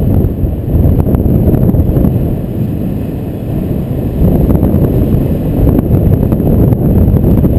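Rushing wind buffeting the microphone of a camera carried by a paraglider in flight: a loud, low rumble that eases a little midway before building again.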